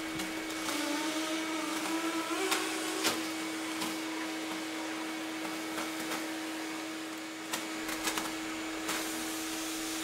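RIDGID HD1400 14-gallon NXT wet/dry shop vacuum running steadily with a constant pitched motor hum, sucking dry leaves off a concrete floor through its wand and hose. There are a few scattered clicks, mostly near the end.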